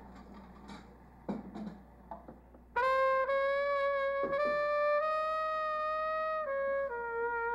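A few light knocks of a glass and cup on a tabletop. About three seconds in, a single wind instrument starts a slow melody of long held notes, stepping down in pitch near the end.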